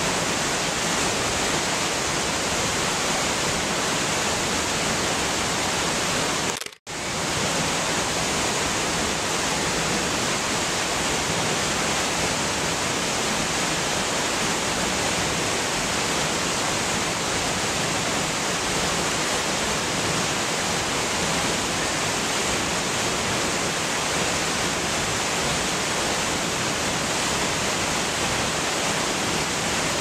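Mountain stream rushing over rocks and boulders, a steady even rush of water that cuts out for a split second about seven seconds in.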